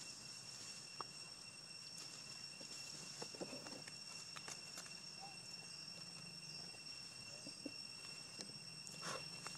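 Faint, steady high-pitched insect drone from the surrounding woodland, with a few soft scattered clicks.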